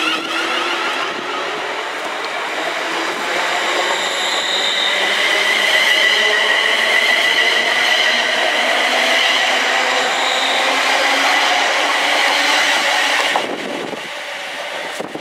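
ScotRail Class 380 electric multiple unit pulling away from the platform, its traction motors whining and climbing in pitch as it gathers speed over the rumble of wheels on rail. The sound drops sharply near the end.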